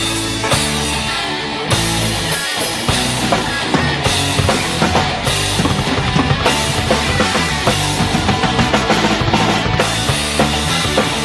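Background music with a fast drum beat over sustained instrument tones, the drums picking up about two seconds in.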